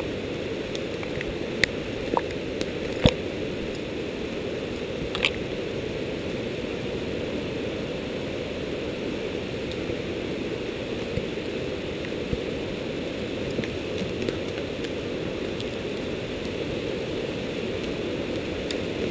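Steady rushing of a nearby forest creek, with a few sharp snaps of sticks underfoot, the loudest about three seconds in.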